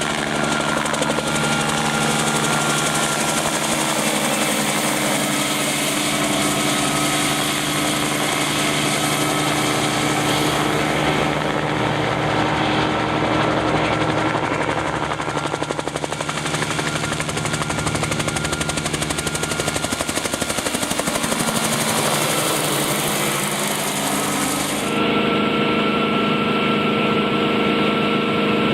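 Bell 47 helicopter running: the steady drone of its piston engine under the rapid chop of the rotor blades, changing abruptly near the end.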